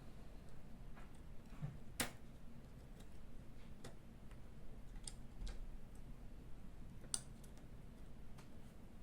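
Scattered small, sharp clicks and taps of precision tools on a smartphone's internal parts during disassembly, the loudest about two seconds in and another about seven seconds in.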